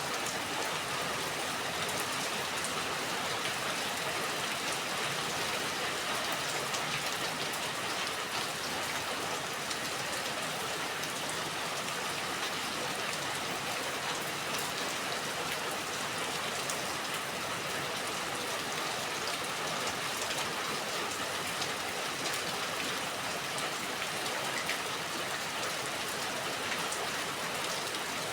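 Steady rain falling, a dense even hiss with many fine individual drop ticks.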